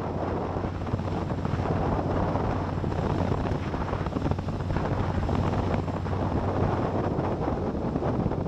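Cruiser motorcycle engine running steadily at road speed, with heavy wind rushing over the camera microphone.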